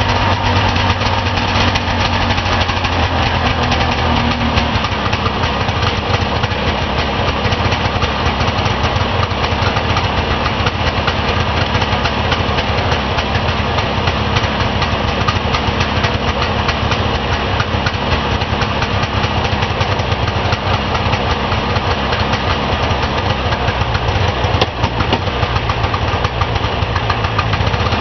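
1978 Arctic Cat Pantera's 500 cc Suzuki fan-cooled two-stroke twin running steadily on a cold start, its first run after two years in storage.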